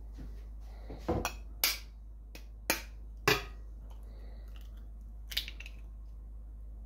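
An egg cracked open against the rim of a ceramic bowl: a run of sharp taps over about two seconds, then one fainter click a couple of seconds later, over a steady low hum.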